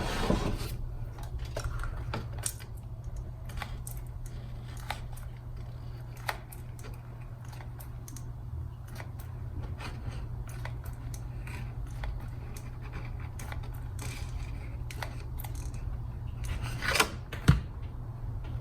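Scattered light clicks, taps and rustles of hands working on a cardstock paper flower and pipe cleaners, over a steady low hum. A louder knock and clatter comes near the end.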